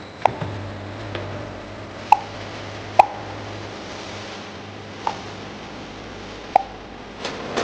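Steady machine hum with about five sharp, irregularly spaced plops, like drops or small pieces falling into liquid.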